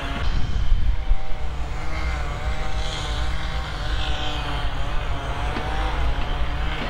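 Steady low drone of an engine running, with a faint wavering whine above it.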